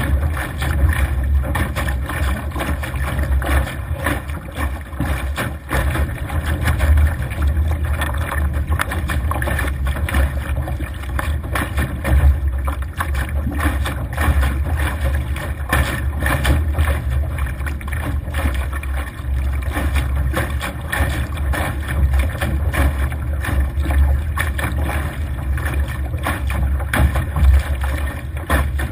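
Wind buffeting the microphone in a constant low rumble, over water rushing and splashing along the hull of a Laser sailing dinghy driving through choppy waves.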